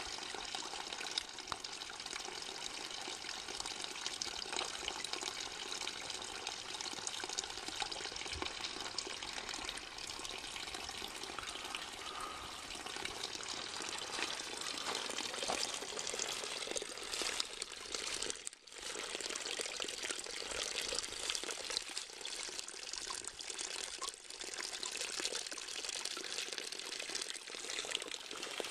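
Spring water pouring in a thin stream from a pipe spout into the shallow creek below, a steady splashing trickle that dips for an instant about two-thirds of the way through.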